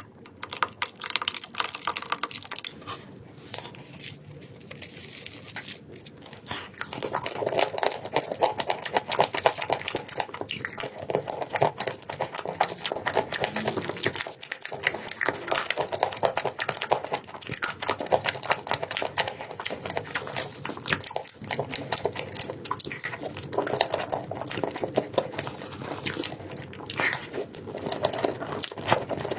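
Close-miked eating sounds: a person chewing and crunching sweet food, a dense stream of small clicks and crackles that grows busier and louder about seven seconds in.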